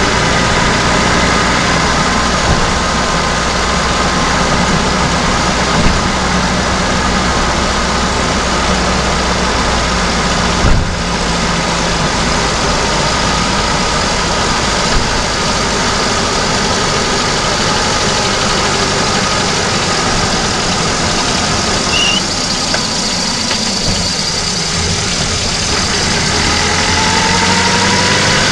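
VAZ-2109 petrol engine running, heard from inside its engine bay while the car is driven. There are two short sharp knocks, about 6 and 11 seconds in, and near the end the pitch rises as the engine revs up.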